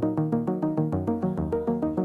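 Background music: a synthesizer melody of quick, evenly pulsed notes with a bass line, in an electronic style.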